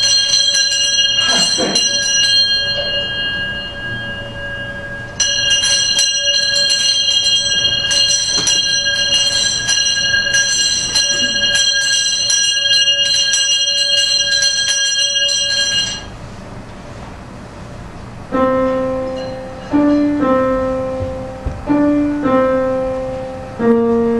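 A bell ringing continuously with a fast, fluttering clang. It stops about four seconds in and rings again for about eleven more seconds. About two seconds after it stops, piano notes begin playing a slow melody.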